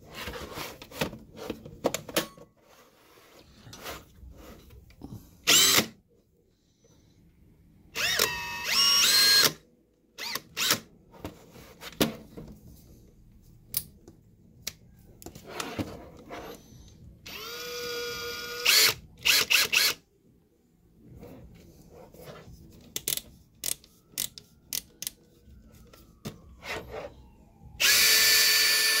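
Makita XPH11 18V brushless cordless hammer drill/driver run four times in short trigger pulls, its motor whirring up to speed and winding down. Scattered clicks and knocks come between the runs.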